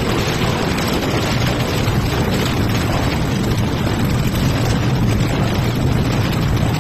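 Plastic crushing and washing line machinery running: a loud, steady mechanical din with a low hum underneath.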